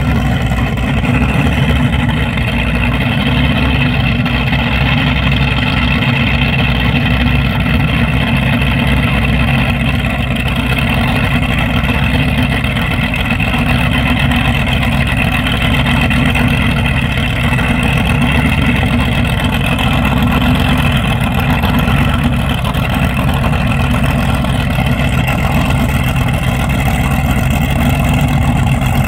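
Twin 800 hp Teague carbureted engines of a DCB F34 catamaran powerboat idling steadily, with no revving.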